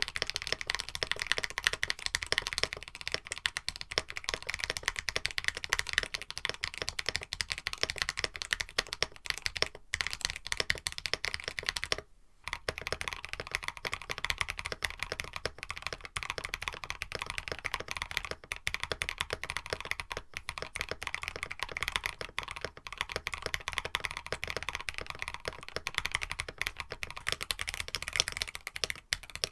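Steady, fast typing on a KBD67 Lite mechanical keyboard with an FR4 plate and lubed linear switches, with a brief pause about twelve seconds in.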